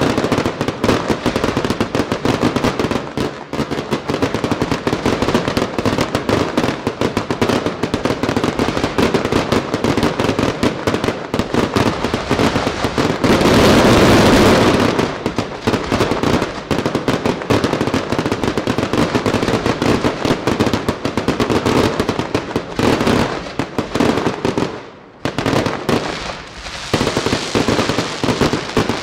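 Aerial fireworks barrage: a dense, continuous run of rapid bangs and crackle from bursting shells. It grows louder and denser about halfway through and dips briefly a few seconds before the end.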